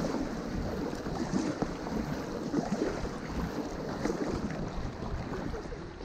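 River water rushing and splashing around a kayak, a steady rough wash with small irregular splashes.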